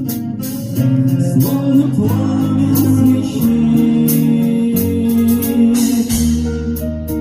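Live acoustic rock ballad: a man singing over strummed acoustic guitars with light percussion.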